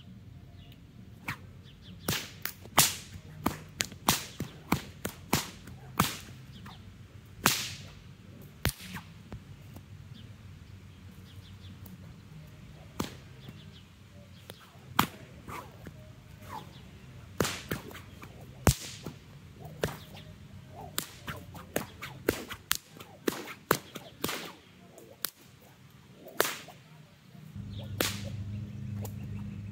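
A whip cracking again and again as it is swung in flowing patterns: sharp single cracks, often several a second in quick runs, with short pauses between the runs.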